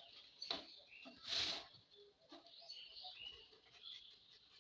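Paper being handled and trimmed, with one louder rustling swish about a second and a half in and smaller scratches around it.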